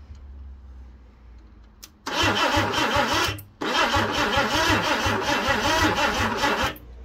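Ford Cortina 2.3 V6 engine being cranked over by its starter motor in two bursts, a short one of just over a second, then about three seconds, with an even pulsing beat and no firing. It turns over but does not catch: there is no spark at the plugs and no fuel in the carburettor, and the owner thinks it needs a new coil.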